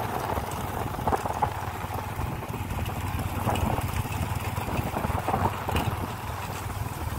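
Motorbike engine running steadily while riding, with wind rushing over the microphone.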